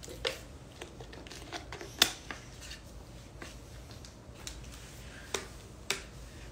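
Thin plastic water bottle being handled and capped: a string of separate crackles and clicks, the sharpest about two seconds in.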